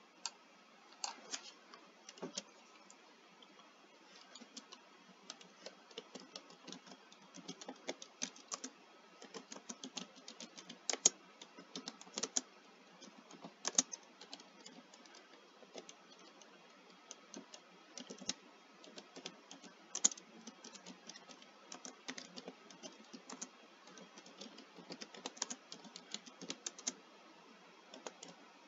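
Typing on a computer keyboard: irregular runs of quick keystroke clicks with short pauses between words.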